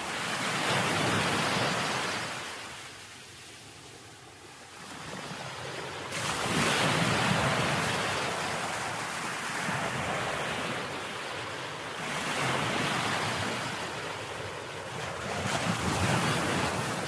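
Sea waves washing along the shore with wind buffeting the phone microphone, the rushing noise swelling and fading every few seconds.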